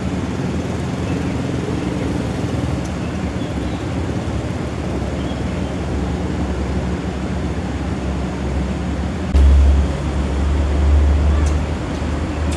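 Steady low background rumble, with a much louder deep rumble that starts suddenly about nine seconds in and lasts about two seconds.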